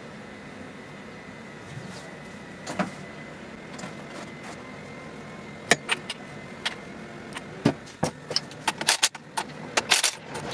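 Metal engine parts clinking and tapping as they are handled. A few single clinks come first, then a quick run of clinks in the last few seconds, over a faint steady high hum.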